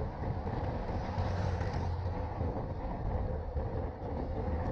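Wind rushing over the microphone of a handlebar-mounted action camera on a moving road bike, mixed with tyre noise on asphalt: a steady low rumble.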